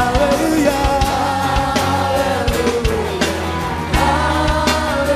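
Live band music with a group singing long held notes over a steady drum-kit beat, part of a worship song medley.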